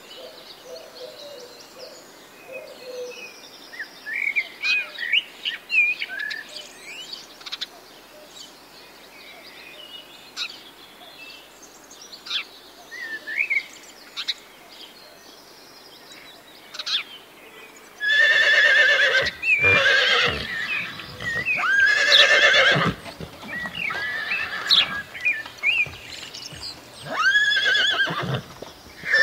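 Small birds chirping faintly, then from about eighteen seconds in, horses whinnying loudly several times.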